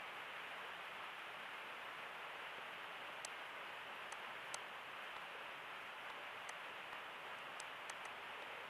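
Steady faint hiss with a scattering of soft computer mouse clicks, a few on their own and a quick run of several near the end.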